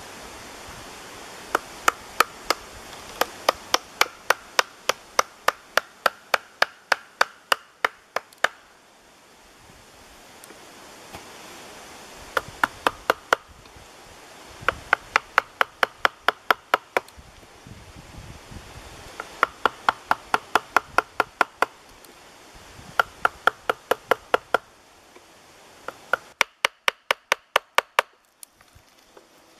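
Wooden mallet striking a chisel to hollow out the bowl of a carved wooden cup (kuksa): runs of sharp knocks, about three or four a second. There are six bursts with short pauses between them.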